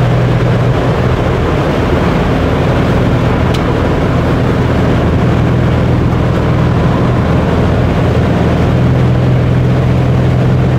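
Steady in-cabin drive noise from an SRT car under way: engine drone with a constant low hum over road and wind noise through the open sunroof.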